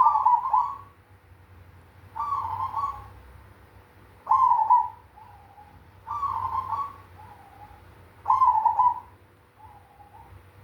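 Cemani (black) zebra dove, or perkutut, cooing its song with a big 'kung' voice: five repeated phrases about two seconds apart, each a short run of coos, the later ones ending in a lower trailing note.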